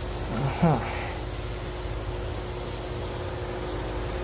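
Steady hiss and hum of water running through a hot-water riser as its valves are cracked open to refill the line, with a short squeaky glide about half a second in.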